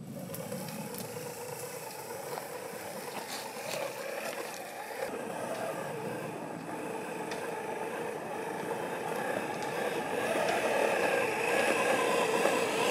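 A 1/8-scale RC crawler's 550-size 21-turn electric motor and gear drive whining steadily as the truck crawls over gravel, with a few small clicks and scrapes from the tyres on stones. The whine grows louder over the last few seconds as the truck comes close.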